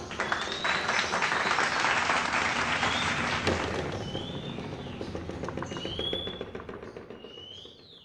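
Electric stand fan running with an oversized blade fitted: a steady rush of air with scattered clicks, fading out toward the end.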